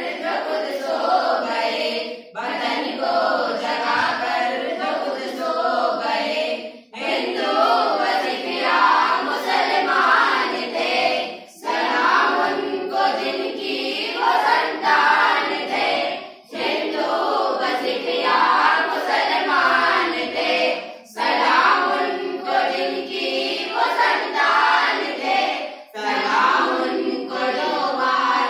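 A group of schoolchildren, girls and boys, sings a patriotic song together in unison without instruments. The singing goes in phrases, with a short breath pause every four to five seconds.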